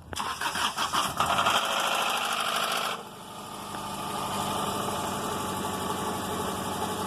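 Subaru Outback's EJ flat-four engine starting: it catches with a loud rattle for about three seconds, then drops suddenly to a steady idle. The rattle at start-up comes from an engine that ran low on oil; the owner takes it for rod knock, though the timing belt tensioner is also suspected.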